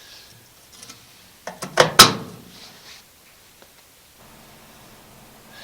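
A few sharp knocks, then one loud bang about two seconds in with a short ring after it, like something being shut or dropped.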